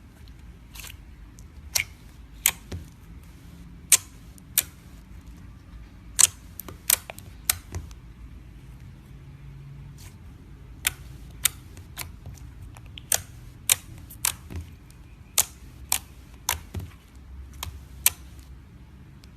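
Slime being squeezed and stretched by hand, giving about twenty sharp clicking pops at irregular intervals as trapped air bursts.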